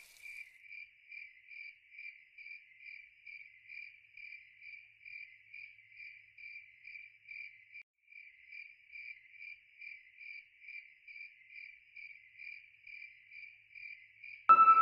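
A cricket chirping in a steady, even rhythm, about three high chirps a second, with a short break about eight seconds in. Music comes in right at the end.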